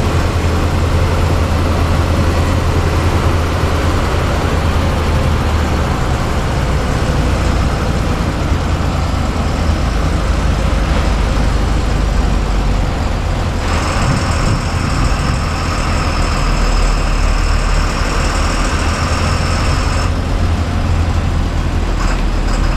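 Bus diesel engine running at low speed, heard from the driver's cab as a steady low drone. A steady high whine comes in abruptly a little past the middle and stops about six seconds later.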